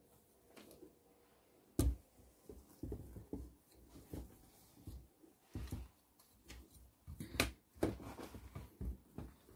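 Handling noise of a camera being picked up and repositioned above a table: irregular knocks, bumps and rustling, with a sharp knock about two seconds in and another past the middle.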